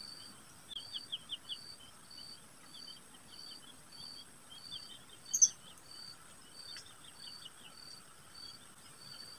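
Faint birds and insects calling: a high, even pip repeats about twice a second, with quick twittering chirps among it and one brief louder chirp about five and a half seconds in.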